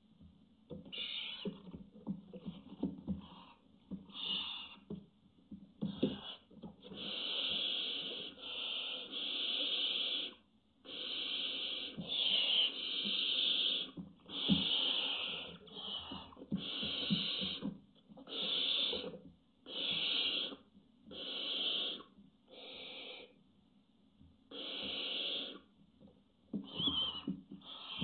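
Barn owls hissing in a nest box as a threat display: a long run of harsh, breathy hisses, each about half a second to two seconds long, with short gaps between them. Soft scratching and scuffling of feet on the nest material can be heard in the gaps.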